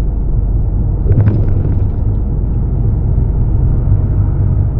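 Steady low rumble of engine and road noise inside a truck cab while driving, with a few light clicks about a second in.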